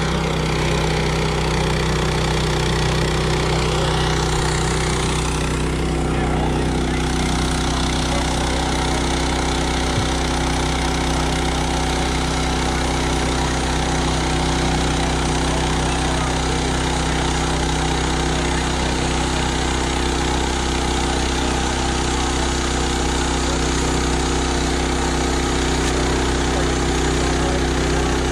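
Small gasoline engine of a portable band sawmill running steadily while the saw head is pushed along a log.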